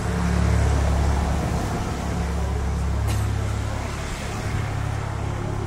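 An engine running steadily, a loud, even low hum with no change in speed.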